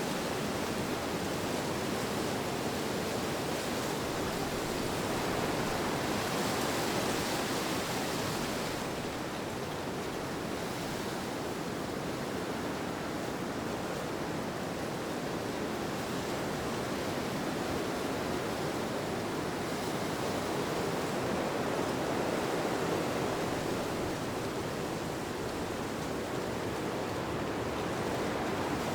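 Steady wind ambience: a soft, even rushing noise that swells gently a couple of times.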